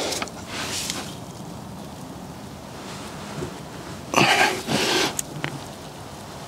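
A man's forceful, strained exhale about four seconds in, with a second shorter one just after, as he strains on a torque wrench while lying under a car.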